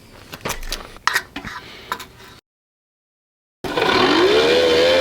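A few small knocks and clicks of handling, then, after a second of dead silence, a hand-crank cast-iron forge blower spun up: a whine over a rush of air that rises in pitch over about half a second and then holds fairly steady, showing the freed-up, geared blower turning freely.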